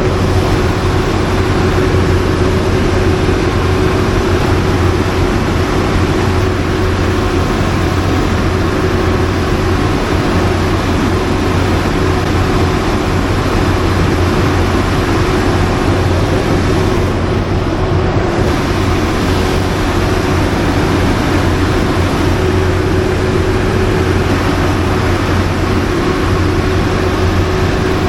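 Large generator set and load bank running: a loud, steady machine drone with a constant hum throughout.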